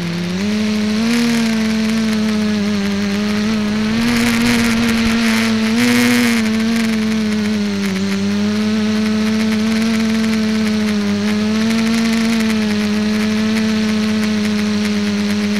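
Electric motors and propellers of an ETFD2 flying-disc multicopter, heard from its onboard camera: a steady hum whose pitch rises and falls with the throttle. A burst of rushing air noise joins it about four seconds in and lasts a couple of seconds.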